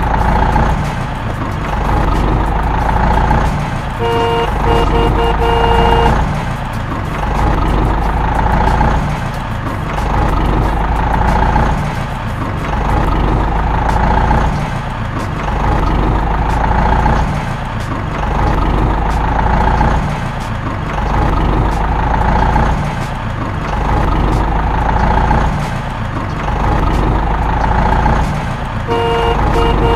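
Simulated heavy diesel truck engine sound, a low rumble swelling and easing in a regular cycle about every three seconds. A reversing-alarm-style beeping sounds for about two seconds around four seconds in, and again near the end.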